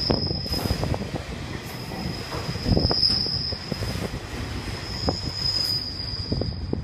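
Container wagons of a freight train rolling past, steel wheels squealing with a high, thin tone that swells and fades several times over a low rumble and clatter of wheels on the rails.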